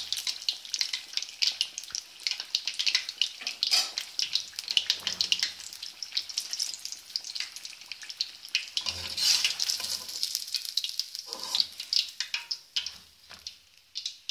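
Battered fish pieces deep-frying in a karahi of hot oil, sizzling and crackling steadily, with a few dull knocks. The sizzle fades away near the end.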